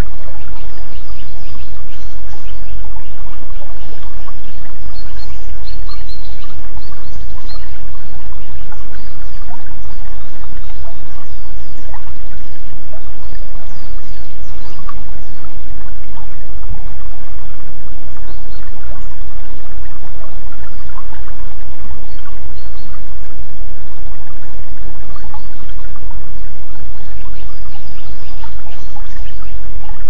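A stream of water running and trickling steadily, with small birds chirping now and then, most of all near the start and near the end. It is recorded on a Samsung S5610 mobile phone's built-in microphone, with a constant low rumble underneath.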